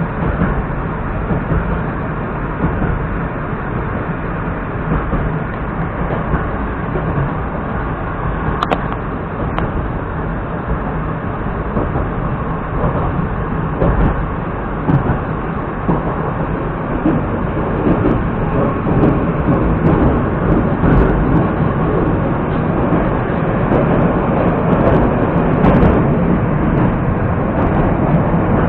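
An 81-765.2 metro train running between stations, heard from inside the car: a steady rumble and rattle of wheels on the rails with a few sharp clicks. It grows louder over the second half.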